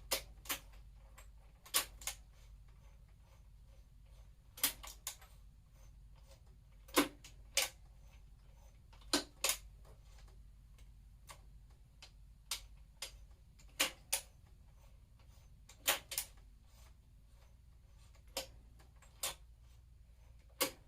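Gear shifter and gearbox of a Lifan V16 250 cc engine being clicked through the gears by hand, sharp metallic clicks at irregular intervals, many in pairs a fraction of a second apart. It is a bench test that the newly installed shifter works.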